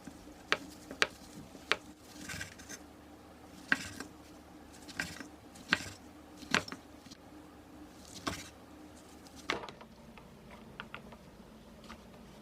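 Kitchen handling sounds: about a dozen scattered light clicks and taps of utensils and dishes, with a few short brushing or rubbing noises between them.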